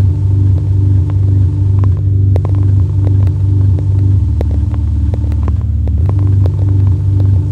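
Car driving, heard from inside the cabin: a steady low rumble that pulses evenly, with light clicks scattered through it.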